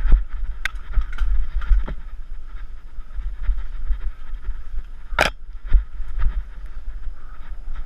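Bike riding over a dirt trail: wind buffeting the microphone with a low rumble, tyre and chassis rattle, and scattered clicks and knocks, the loudest about five seconds in.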